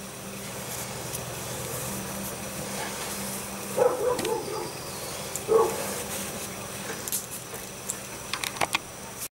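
Soft handling noise as a cotton bandage is pulled and wound tightly around a cloth-wrapped pork loin, with a few light clicks near the end, over a steady background hum. Two short calls in the background, about four and five and a half seconds in, are the loudest sounds.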